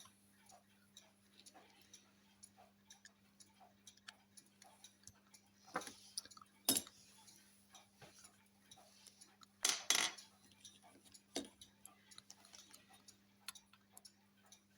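Faint, even ticking of about two to three ticks a second, like a clock running, over a low hum. A few sharper clicks of small metal parts being handled, the loudest about ten seconds in.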